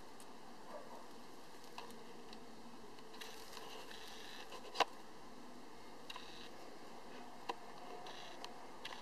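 Camera handling noise from a handheld DSLR: scattered small clicks and ticks over a steady low hiss, with one sharper click about five seconds in and another near the end.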